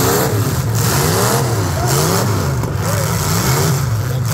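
Demolition derby cars' engines revving hard, the pitch rising and falling over and over.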